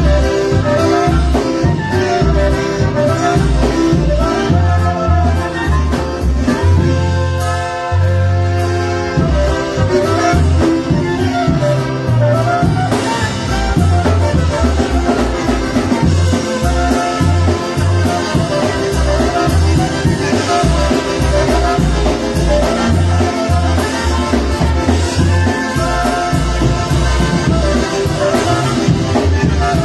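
Live polka band playing an instrumental sound-check number, with brass and accordion over a steady bass beat.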